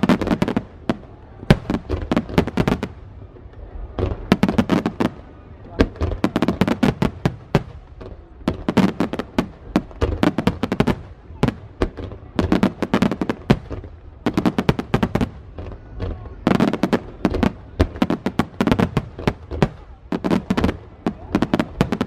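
Aerial fireworks bursting in quick succession: clusters of sharp bangs and cracks, a new volley every second or two.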